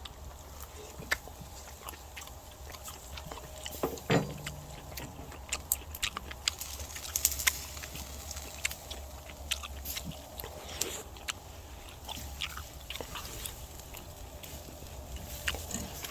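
A person chewing a bite of grilled black pork, with wet mouth clicks and smacks.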